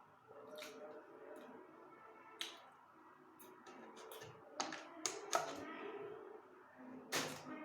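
Someone eating chocolate cake: irregular sharp mouth clicks and smacks of chewing, with a cluster of louder ones about five seconds in and another near the end.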